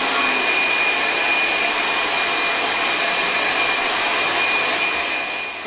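Electric hand mixer running at high speed, its beaters whipping instant coffee, sugar and hot water into dalgona foam in a bowl: a steady motor whir with a thin high whine, easing off slightly near the end.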